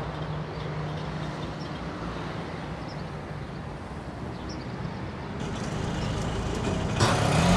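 Steady street traffic noise. Near the end the low engine rumble of an approaching auto-rickshaw grows louder.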